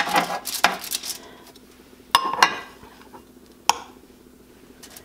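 Metal spoon scraping and clinking as drop-biscuit dough is scooped and dropped onto a foil-lined baking sheet: a run of scrapes in the first second, a clink with a short ring about two seconds in, and a single sharp tap near four seconds.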